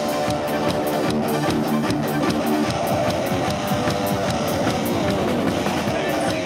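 Live band playing rock music, with guitar over a steady drum beat.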